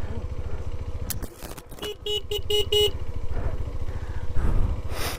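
Motorcycle engine running with a steady low pulse, its sound dipping briefly about a second in. About two seconds in, a horn gives a rapid string of four or five short toots.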